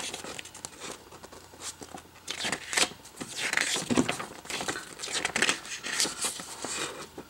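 Paper pages of a comic book being handled and turned, rustling and crinkling in a string of short, irregular bursts.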